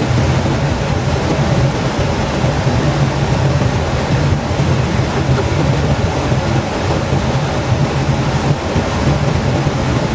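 Sweet-and-sour fish sauce simmering and bubbling in a non-stick frying pan on the stove: a steady noisy sound with a low hum underneath.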